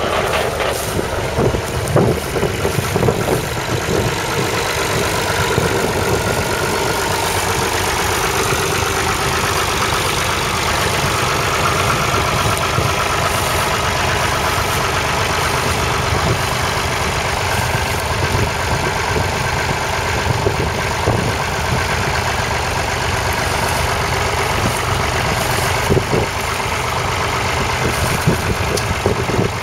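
1961 Massey Ferguson 35's 2.5-litre three-cylinder diesel engine idling steadily, with a few brief knocks.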